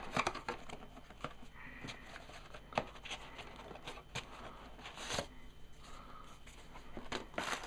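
Small cardboard box being opened and its packaging handled: scattered light clicks, taps and rustles of cardboard and wrapping.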